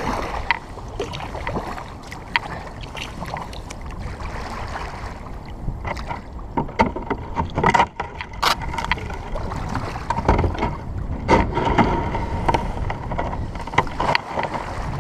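Sea kayak being paddled and manoeuvred into place among floating ice: water splashing and sloshing around the paddle and hull, with occasional sharp knocks.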